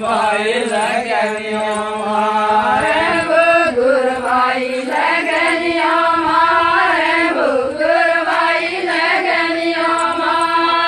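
A group singing an Adivasi folk song in unison, without instruments, with long drawn-out held notes.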